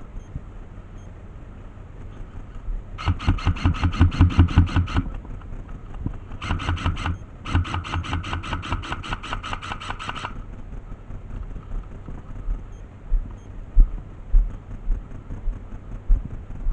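Airsoft electric rifle firing on full auto in three bursts: one of about two seconds, a short one, then one of about three seconds. Each is a rapid, even rattle of roughly ten shots a second. A few low thumps follow near the end.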